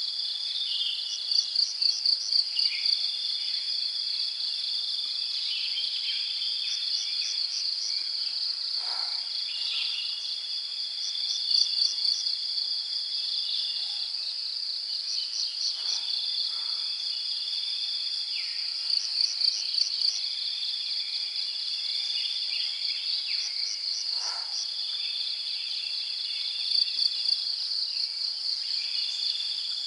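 Insects chorusing: a steady high drone, with a lower trill that comes in repeated phrases of about two seconds. Every seven or eight seconds there is a louder run of pulsed chirps at about four a second.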